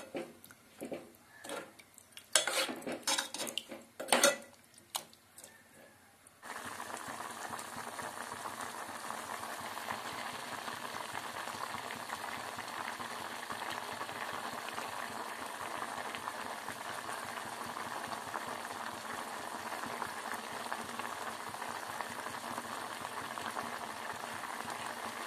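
A steel spoon stirs and scrapes mutton curry in an aluminium pot, knocking loudly against the pot several times. About six seconds in, the sound changes to the steady hiss and crackle of the curry gravy boiling.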